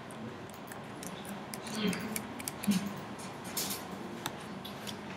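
Typing on a computer keyboard: a quick, irregular run of light key clicks as a password is entered.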